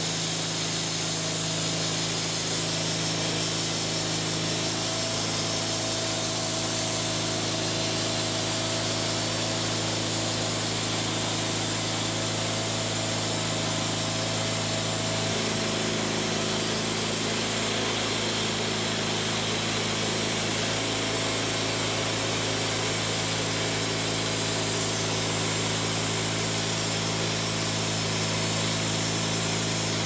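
Wood-Mizer LT40HD portable band sawmill running: its gasoline engine drives the band blade as it cuts along a log, in a steady mechanical drone whose pitch shifts slightly about halfway through.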